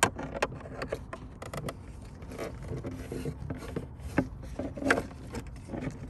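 Plastic seat-belt trim piece and belt webbing being handled and slid into place, giving scattered sharp clicks and short scrapes of plastic against the car's carpet and metal.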